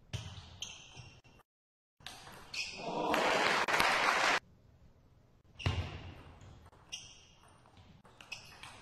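Table tennis ball clicking off the bats and table, then a short dead-silent gap. About two seconds in, a burst of crowd applause lasts a couple of seconds and is the loudest part. From about halfway, the ball's sharp clicks and bounces resume as play restarts.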